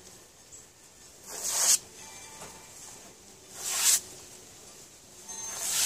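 A sheet of newspaper being torn into strips by hand, three tears about two seconds apart, each building quickly and ending abruptly as the strip comes free.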